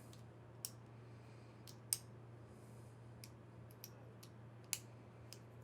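Faint, scattered light metallic clicks of tweezers working the C-clip off the back of an Abus 72/40 padlock's lock core, one a little louder about two seconds in, over a steady low hum.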